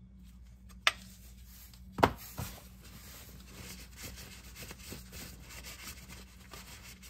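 Handling noises while working under a car: a sharp click about a second in, a louder knock about two seconds in with a lighter one just after, then steady rubbing and shuffling.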